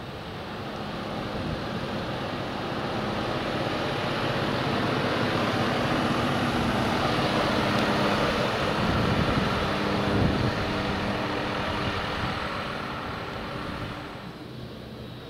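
A city bus driving past close by and pulling away: its engine and tyre noise swell over several seconds, are loudest in the middle, then fade as it moves off.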